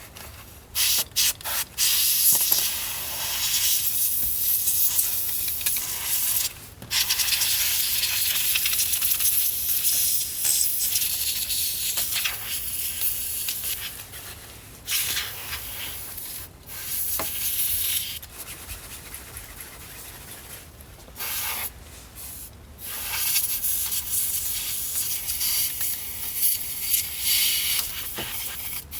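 Can of compressed air sprayed in long hissing bursts with short breaks, blowing dust out of the inside of a boombox.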